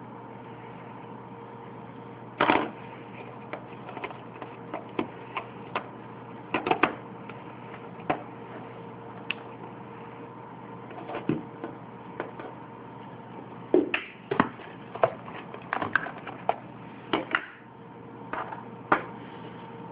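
Irregular clicks, taps and knocks of hands handling small objects, over a steady hum.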